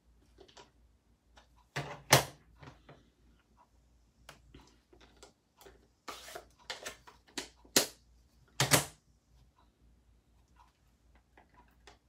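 Plastic ink pads being snapped shut and set aside: a run of light plastic clicks and taps, with louder knocks about two seconds in and twice around eight to nine seconds in.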